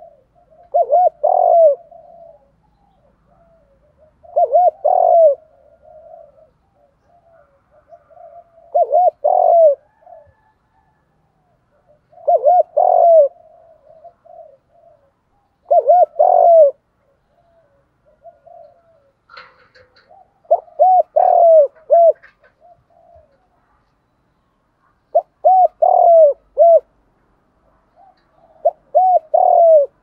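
Spotted dove cooing: a short phrase of two to four quick coos repeated about every four seconds, eight times, with soft low murmuring between phrases.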